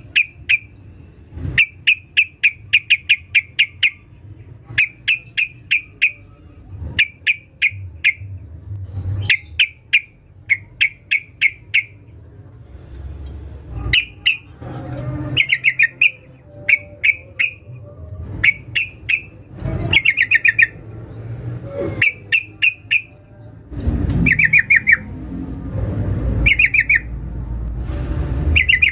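Yellow-vented bulbul (trucukan) calling in rapid bursts of short, sharp chattering notes, several notes per burst, repeated every second or two. It is a female's call to a male, the kind used as a lure to set other trucukan singing. A low rumble runs under the calls in the last few seconds.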